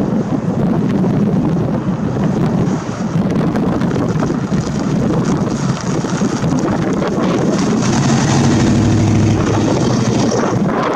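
Chevy 350 small-block V8 of a 1950 Chevrolet Fleetline running as the car drives past, its exhaust getting louder and deeper from about eight seconds in as it pulls away.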